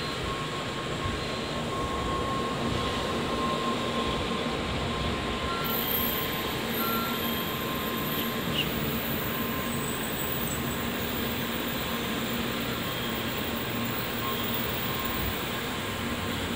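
N700-series Shinkansen train moving at low speed past the platform: a steady rumble of wheels on rail with a faint steady whine.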